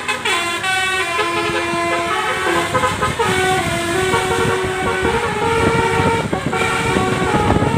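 Bus's Basuri telolet horn, a multi-tone air horn, playing a tune of held notes that step up and down in pitch, starting with a falling glide. A rough engine rumble runs beneath, stronger in the second half.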